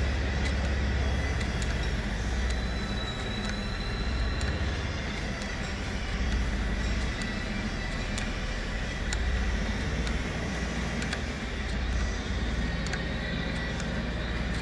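Rockwell lathe running under power, its headstock gears turning with a steady mechanical hum and low rumble, with scattered faint ticks.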